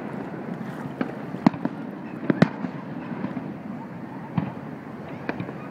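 A fireworks display: about half a dozen sharp bangs and pops from bursting shells, spread unevenly, the loudest pair about two and a half seconds in, over a steady background noise.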